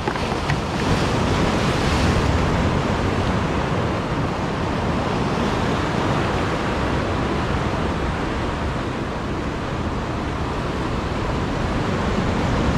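Sea surf washing in and breaking against concrete tetrapod blocks: a steady rush of water.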